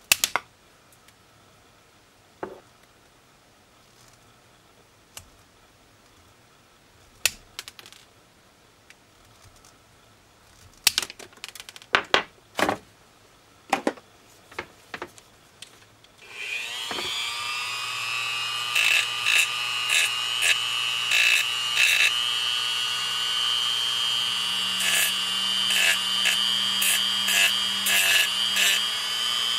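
Sharp clicks and taps of small side cutters snipping the tabs off cylindrical lithium-ion cells on a workbench. About 16 seconds in, a handheld rotary tool starts with a rising whine and runs steadily, with repeated rasping bursts as its grinding bit is pressed against a red lithium-ion cell.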